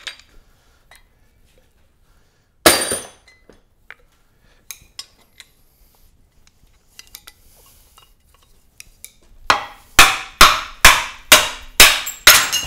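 Hand tools clinking and striking metal engine parts of a stripped-down 2GR-FE V6. There is one loud clank about three seconds in and a few small clicks, then a run of about eight sharp metallic strikes, two or three a second, over the last three seconds.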